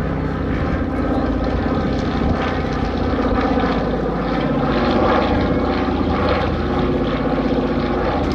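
The two Pratt & Whitney R-1830-92 fourteen-cylinder radial engines and propellers of a Consolidated PBY-5A Catalina droning steadily as it flies past, loudest about halfway through.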